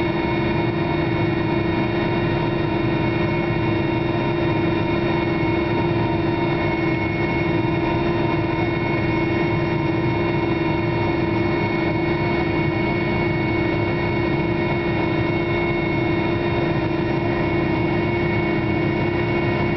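Mil Mi-8P helicopter's twin turboshaft engines running at a steady speed, heard from inside the passenger cabin: a steady whine of several pitches over a dense drone, with no rise or fall.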